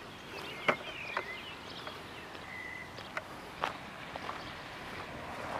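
A few scattered footsteps on rough concrete, with faint short high chirps in between.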